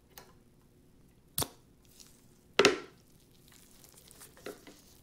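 Gloved hands pulling the straight attachment off a low-speed dental handpiece motor and handling the metal parts. A sharp click comes about a second and a half in, a louder knock about a second later, and a few faint clicks near the end.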